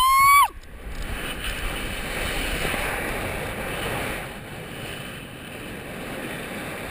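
A bungee jumper's short high whoop, rising then falling in pitch and over about half a second in, then a steady rush of wind over the action camera's microphone as he bounces and swings on the cord, a little quieter in the second half.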